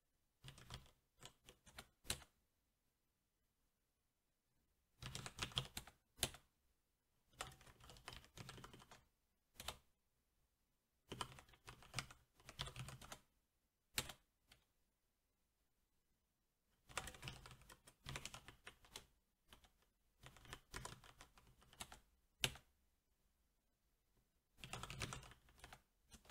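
Typing on a SteelSeries 6Gv2 mechanical keyboard with Cherry MX Black switches. Quick bursts of keystrokes come in short runs, each often ending in a single sharper key click, with pauses of a second or two between runs.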